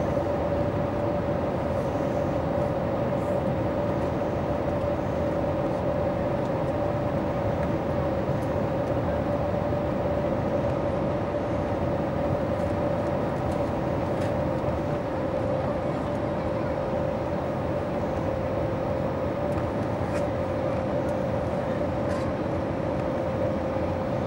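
Steady cabin noise inside an Airbus A321neo climbing after take-off: engine and airflow rush with a constant hum. About two-thirds of the way through, the hum sinks slightly in pitch.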